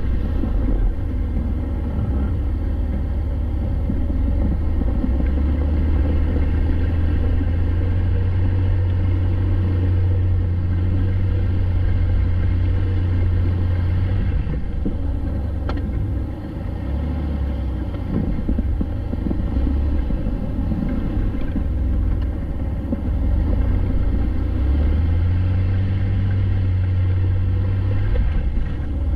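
Jeep Wrangler driving: engine and road noise make a deep, steady rumble, the engine note shifting a little in pitch now and then.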